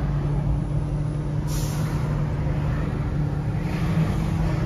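A car driving slowly in traffic, heard from inside the cabin: a steady low engine and road hum. Two brief hisses cut in over it, the first suddenly about a second and a half in, the second swelling near the end.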